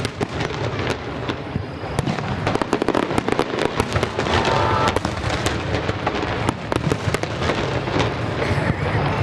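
Aerial fireworks display: shells bursting one after another in a dense run of bangs and crackles over a continuous low rumble.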